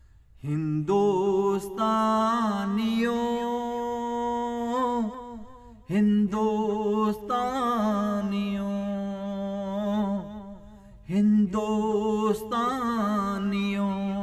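Wordless sung introduction to a Punjabi devotional song: a voice holds long, wavering, ornamented notes in three phrases over a steady drone.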